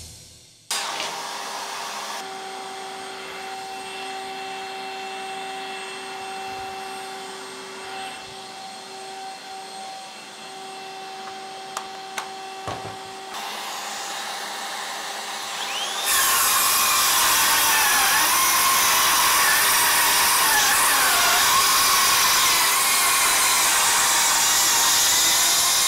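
A shop vacuum used for dust extraction runs with a steady hum. About 16 s in, a Makita XSH04 sub-compact brushless cordless circular saw starts cutting through an OSB board, a much louder continuous cutting noise with the motor pitch wavering under load, over the vacuum.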